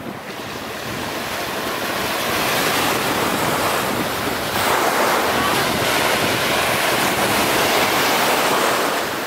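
Ocean surf washing onto a sandy beach: a steady rushing that grows louder over the first few seconds, with wind on the microphone.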